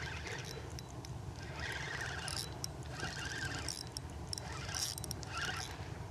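Small clicks and knocks with light water sounds beside a kayak as a hooked fish is played and brought in, over a steady low rumble.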